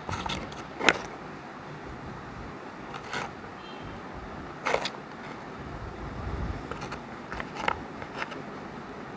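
Sooper biscuits tapping and clicking against each other and the tray as they are picked up and stacked in a hand. There are several sharp taps, the loudest about a second in.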